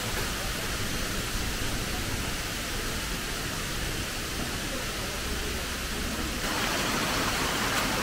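Steady rush of water from a waterfall and its cascading streams, growing fuller and a little louder about six seconds in.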